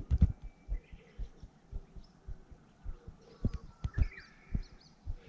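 Soft low thumps at an uneven pace of about two a second, handling noise from a baitcasting rod and reel being worked, with a few faint bird chirps about one and four seconds in.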